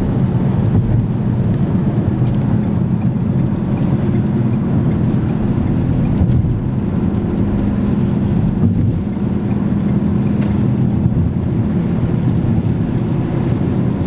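Car driving at highway speed, heard from inside the cabin: a steady low rumble of tyres and engine.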